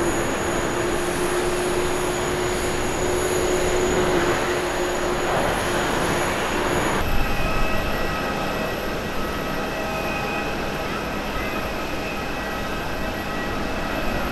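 Boeing 787 jet engines running with a steady whine over a hum of engine noise as the airliner moves along the runway. About seven seconds in the sound changes suddenly to a different set of high, steady whines from a 787 taxiing slowly at low thrust.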